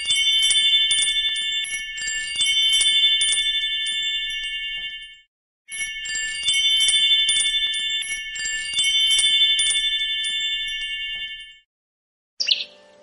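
Wind chime ringing: a cluster of high, sustained tones with light tinkling strikes above them. It cuts to silence about five seconds in, and the same ringing starts again half a second later. It stops about a second before the end.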